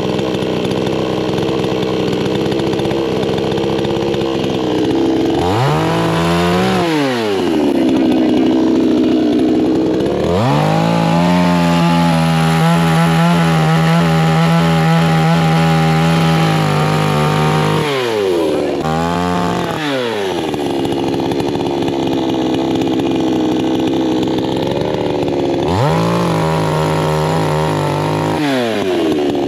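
Chainsaw engine running and revving up and down repeatedly. Its pitch rises steeply about 5 and 10 seconds in, holds high and steady for several seconds, falls back, and rises again near the end.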